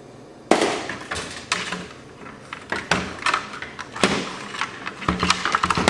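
Clicks, knocks and rattles of plastic and metal parts being handled and pried apart by hand inside an opened AV receiver, ending in a quick run of small clicks.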